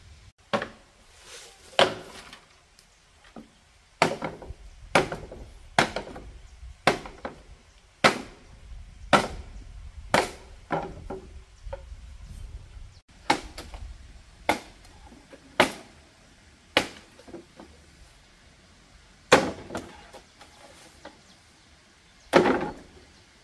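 Hollow bamboo poles knocking and clattering as they are dropped onto a pile, a sharp wooden knock roughly every second with a short ringing tail, the two loudest near the end.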